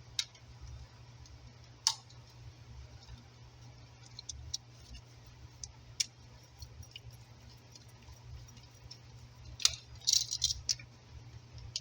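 Scattered small metallic clicks and rattles, with a quick cluster near the end, from a wire and an electrical outlet being handled and its side screw terminal tightened with a screwdriver.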